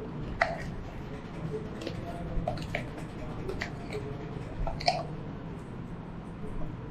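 Jelly being squeezed through a meat grinder: scattered wet squishes and clicks over a low steady hum, with the sharpest pops about half a second in and near five seconds.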